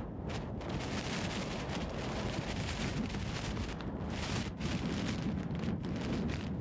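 Wind buffeting the microphone in a blizzard: a steady rush with a strong low rumble that surges and eases every second or so.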